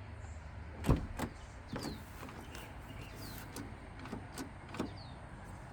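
Car door latch and handle mechanism being worked by hand: a loud knock about a second in, then a few lighter clicks and taps. The latch is not releasing because the mechanism has fallen down inside the door.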